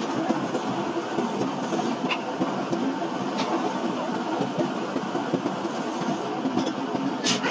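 Heavy forging-plant machinery running with a steady, dense noise, a few light clicks over it and a louder sharp knock near the end.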